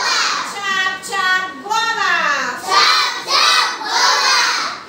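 A group of young children singing together in unison, a classroom chant with long held notes that slide up and down.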